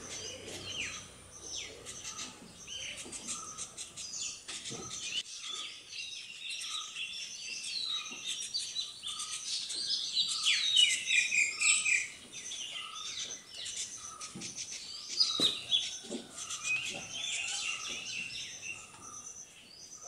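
Rose-ringed parakeets calling: many overlapping shrill chirps and falling squawks, swelling into a busy flurry about halfway through. A short note repeats a little more than once a second in the background.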